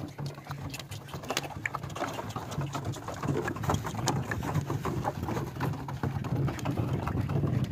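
Donkeys running over dry sandy ground while dragging plastic water drums that roll behind them on ropes: a continuous low rumble with an irregular clatter of hoofbeats and knocks.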